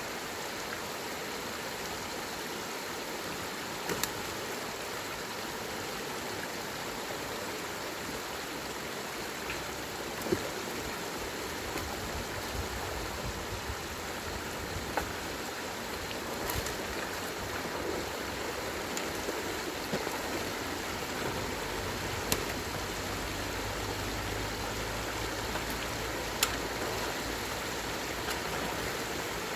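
Rain-swollen stream water rushing steadily at a beaver dam, with a few sharp knocks scattered through it. A deeper low rumble joins in past the middle.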